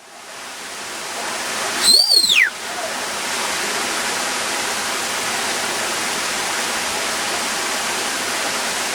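Waterfall rushing steadily. About two seconds in, a brief loud high-pitched whistle-like cry rises slightly and then sweeps down in pitch.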